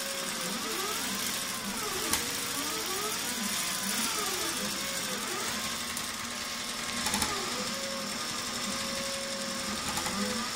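Voyager 17 mid-arm sewing machine stitching steadily on a CNC-driven quilting frame. The X and Y stepper motors whine, their pitch rising and falling in repeated arcs as the machine sweeps through curves of the pattern. There are a few sharp ticks, about two seconds in and around seven seconds in.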